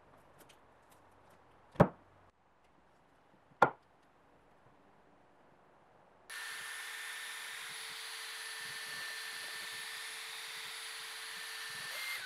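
Two sharp wooden knocks, about two seconds apart, as the oak board is set into the mould. Then, from about six seconds in, a cordless drill runs steadily, turning a mixing rod in a plastic bucket of epoxy resin.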